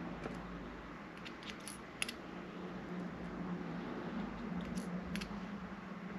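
Light metallic ticks of steel tweezers and small brass pin tumblers as the pins are set one by one into a lock cylinder, a few scattered clicks with the sharpest about two seconds in, over a faint steady hum.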